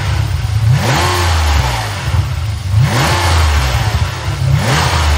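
Ferrari 456's V12 engine revved in three quick throttle blips about two seconds apart, each rising and falling back to idle.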